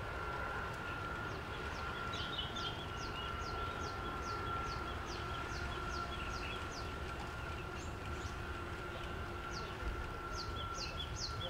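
A songbird calling a long series of quick, high, falling chirps, about three a second, over a steady low rumble and a faint steady tone.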